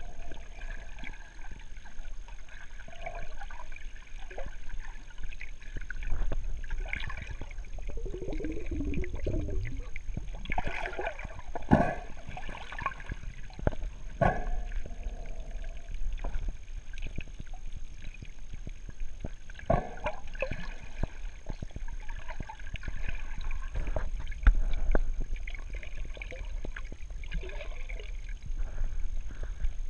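Underwater sound picked up by a GoPro inside its waterproof housing: a low, steady muffled rumble of moving water with scattered knocks and clicks. Bubbling, gurgling water comes in bursts, the strongest a little under halfway through.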